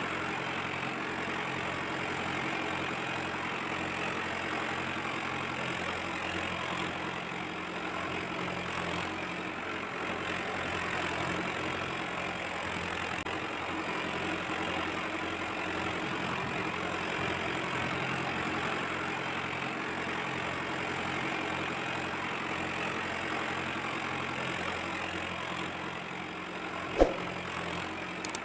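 Diesel tractor engine running steadily at idle. A single sharp click comes about a second before the end.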